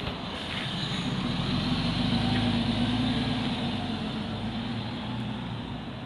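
Natural-gas engine of a MAN Lion's City CNG city bus pulling away from a stop and driving off. It is a low engine hum that grows louder for a couple of seconds and then fades as the bus moves away.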